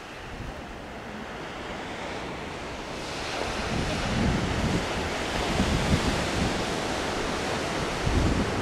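Sea surf washing on the shore, with wind buffeting the microphone in gusts; the noise grows louder about three seconds in.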